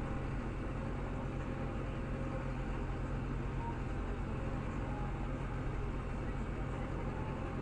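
Tractor engine running steadily under load, driving a Samasz P6-771 rotary tedder through the PTO as it turns mown grass.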